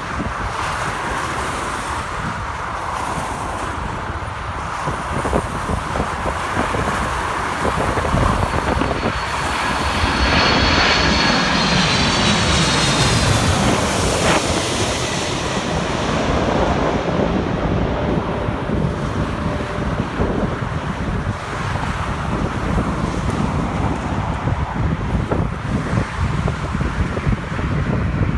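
Jet airliner passing overhead on its landing approach: engine noise swells to a peak about halfway through, with a high turbine whine that slides down in pitch as it goes by, then eases off.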